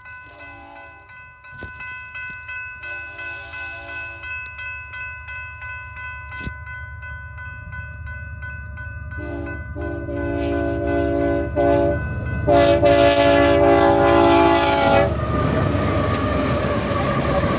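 Grade crossing bell ringing steadily while the lead locomotive of a Union Pacific coal train, GE AC44CWCTE 5717, sounds its horn in a series of blasts for the crossing, getting louder as it approaches, the last two long and loudest. About 15 seconds in, the horn stops and the locomotive passes close by, its diesel engine and rattling wheels loud.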